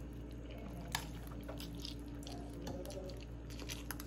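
Slurping and chewing a mouthful of thin rice noodles: soft wet mouth sounds with scattered light clicks, the sharpest about a second in.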